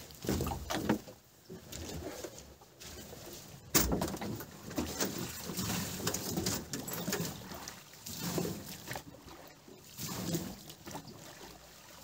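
Irregular knocks, thuds and scrapes of boots and gear against a small boat's hull as a man moves about in it and handles a gill net, with one sharp knock about four seconds in.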